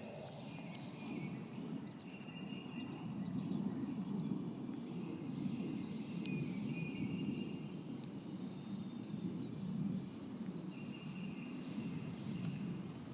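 A Soeks radiation dosimeter giving only a few sparse clicks, seconds apart, at about background level over the rainwater. Under it a steady low outdoor rumble and faint bird calls come and go.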